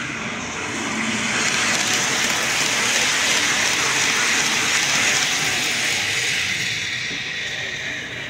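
Model passenger train running past close by: a rushing, rolling noise of wheels on track that swells over a few seconds and then fades away.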